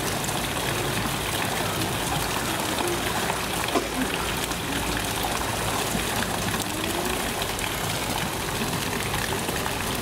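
Water rushing steadily into a pool, an even, unbroken rushing noise, with faint voices underneath.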